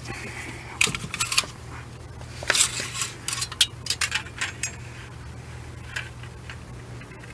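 Oil dipstick being drawn out of and pushed back into its metal tube: a run of light metallic clicks and rattles, busiest between about one and five seconds in, over a steady low hum.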